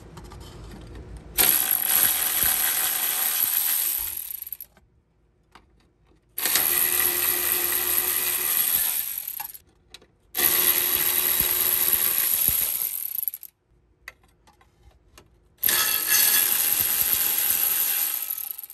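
Air ratchet running in four bursts of about three seconds each, spinning out the 17 mm bolts that hold the upper mount of a rear strut.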